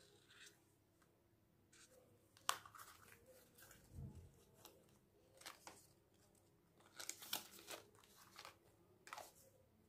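Folded paper card being handled, flipped over and unfolded on a sketchbook: faint paper rustles and crinkles with a few sharp taps, the sharpest about two and a half seconds in and a cluster a little after seven seconds.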